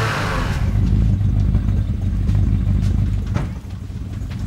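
Jeep engine sound effect running with a steady low rumble, easing off briefly near the end.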